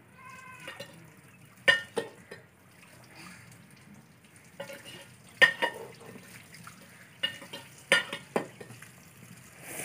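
Water from a hose splashing as a boy washes his face, a handful of short sharp splashes spread through a faint background.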